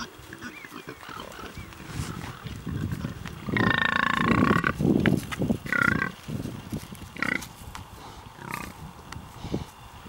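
Pigs grunting, the grunts building from about two seconds in. Around the middle comes a long, high-pitched squeal lasting about a second, then two shorter squeals, before the grunting eases off.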